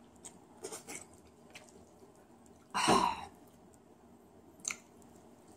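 Close-up eating sounds of a person chewing ramyun noodles: small wet mouth clicks, then one loud half-second mouth noise about three seconds in, and a single sharp click near the end.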